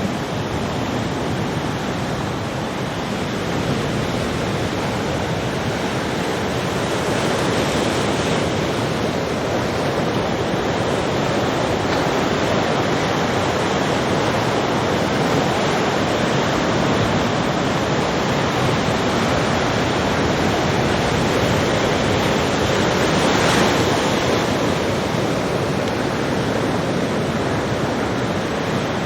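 Ocean surf: big waves breaking in a continuous wash of noise that swells and eases, building to its loudest a little over three quarters of the way through, with wind buffeting the microphone.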